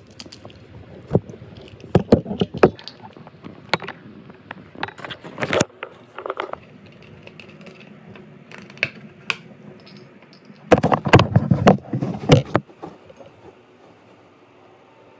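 Handling noises of kitchen items on a tabletop and of the handheld phone: irregular knocks, clicks and scrapes, with a dense run of knocks about eleven seconds in, then quieter.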